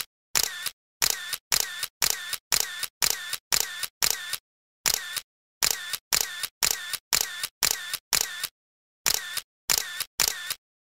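Single-lens reflex camera shutter sound effect, clicking about twice a second in short runs with two brief pauses.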